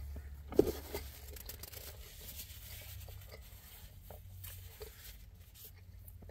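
Handling noises from a plastic takeout food container and a fork: scattered small clicks, taps and rustles, with one sharper knock about half a second in, over a low steady hum.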